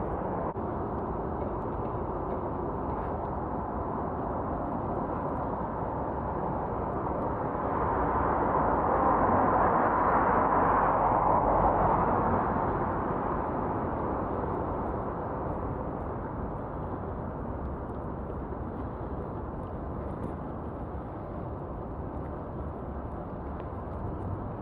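Wind and tyre noise of a bicycle being ridden, picked up by a camera mounted low on the bike. The noise swells for a few seconds in the middle, then settles back.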